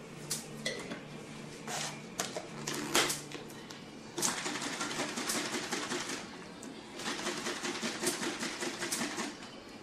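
Homemade oil-and-vinegar salad dressing being shaken hard in a small lidded container by hand: two bouts of rapid rattling, starting about four seconds in and again about seven seconds in, after a few stray handling clicks.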